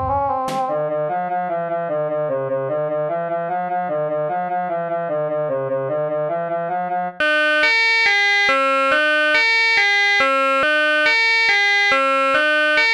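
Synthesizer keyboard playing a sequence of notes in one sound, then switching abruptly about seven seconds in to a different, brighter sound. The new sound plays separate, sharply struck notes in a repeating pattern, a little louder.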